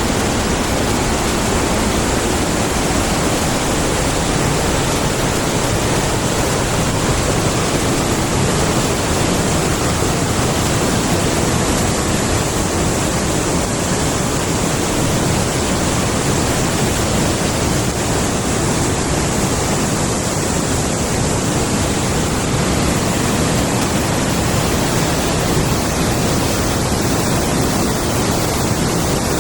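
A large forest stream rushing steadily, an even loud noise of flowing water.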